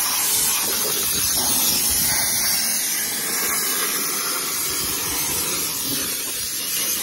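Compressed-air blow gun hissing steadily as it blows water off a wet engine bay to dry it.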